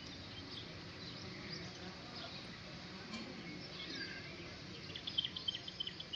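Outdoor background hiss with faint bird chirps, ending in a quick run of short chirps near the end.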